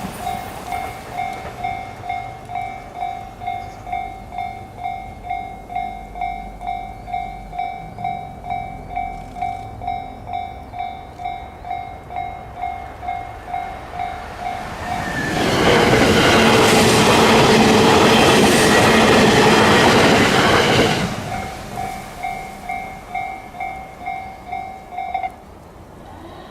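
Japanese railroad-crossing warning bell ringing an even ding-ding, about two strikes a second. About fifteen seconds in, an electric train on the Chuo Line passes loudly for some six seconds and drowns the bell. The bell then comes back and stops suddenly near the end.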